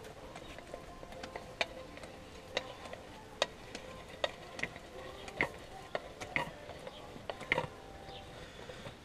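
Grease gun clicking at a grease nipple on a baler: sharp, irregular clicks about once a second. The operator takes the trouble for the gun air-locking again.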